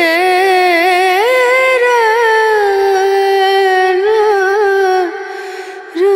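Background song: a high-voiced singer holds one long note with vibrato over a soft accompaniment, then starts a new phrase near the end. The song is in Hindi.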